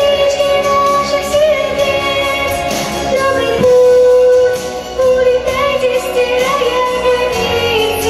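A young girl singing a pop song into a handheld microphone over instrumental accompaniment. She holds one long note about halfway through.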